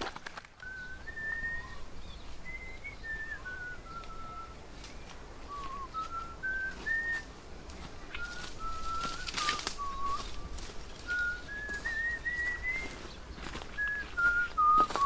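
A slow whistled tune, single clear notes stepping up and down in pitch, with a few rustles and knocks, louder near the end.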